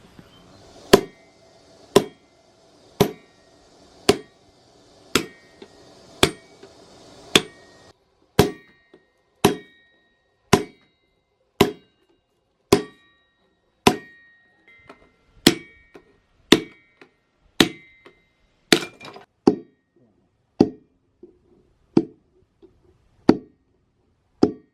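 Blacksmith's hand hammer striking steel on an anvil with a metallic ring, about one blow a second, forging a chainsaw bar into a golok blade. Lighter taps fall between some blows in the second half.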